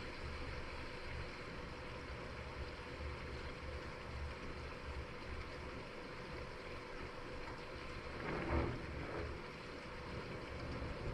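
Steady hiss of rain during a night thunderstorm over a low, uneven rumble, with one short, louder whoosh about eight and a half seconds in.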